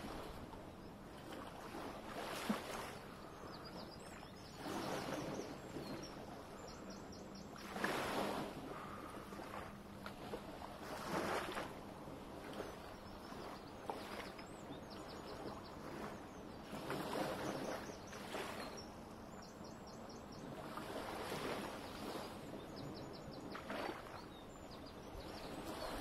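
Small waves lapping on the shore, a soft wash every few seconds over a steady background rush.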